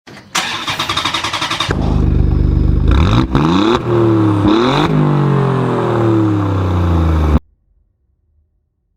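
An engine revving up and down several times, then cutting off abruptly.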